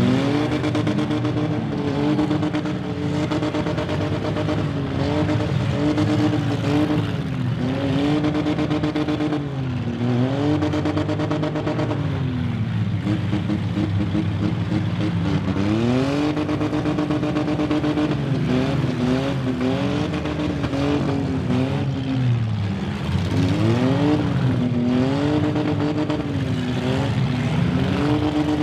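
Engines of several 1990s-and-newer demolition derby cars revving hard, the pitch climbing and dropping again and again as they push and ram each other in the mud.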